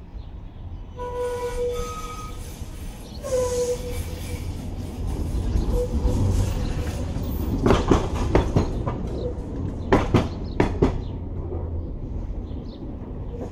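Tatra T3SU tram running on a tight loop curve, with a low rumble throughout and short wheel squeals in the first few seconds. In the second half, as it passes close, the wheels clack sharply over rail joints several times.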